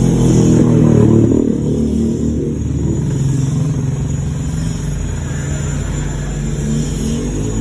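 Motorcycle engine running, its pitch rising in a rev during the first second or so, then settling to a steady run, with another slight rise near the end.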